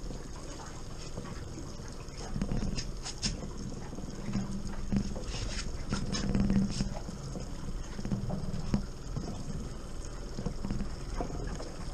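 Fishing reel being cranked in spurts against a hooked coho salmon on a bent rod, with short clicks from the reel, over a steady low rumble.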